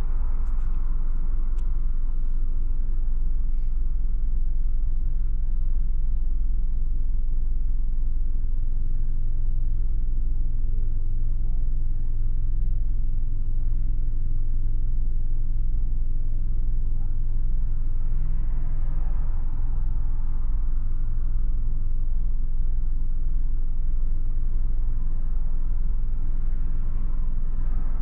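Car engine idling while stopped in traffic, heard from inside the cabin as a steady low hum. A brief swell of traffic noise comes about two-thirds of the way in.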